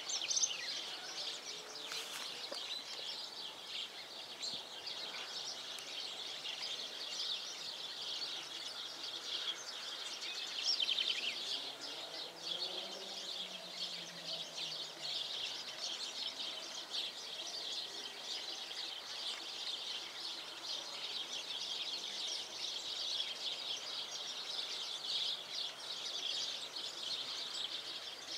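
Dense, steady outdoor chorus of many quick high-pitched chirps from birds or insects. A faint low hum swells and fades around the middle.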